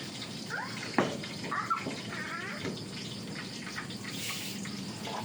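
Water running steadily from a tap, with a few short, faint rising-and-falling cries and one sharp knock about a second in.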